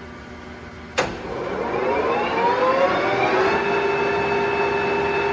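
Clausing Colchester 21-inch engine lathe's headstock spindle and gearing. A sharp click about a second in, then a whine that rises in pitch as the spindle spins up to 760 rpm in high range. It levels off into a steady whine from about three and a half seconds.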